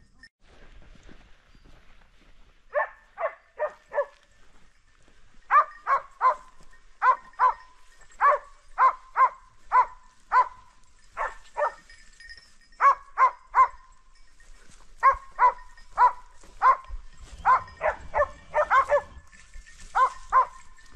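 A hunting dog barking repeatedly, in quick runs of two to four barks, starting about three seconds in.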